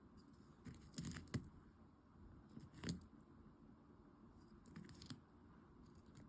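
Mesotopus tarandus stag beetle vibrating its body when agitated, making short scratchy rattling bursts about four times, each a second or less long.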